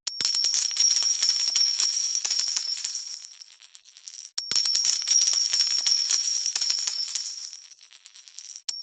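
Cascade of coins falling, metallic clinks with a high ringing, heard as two pours, each starting loud and thinning out over about four seconds.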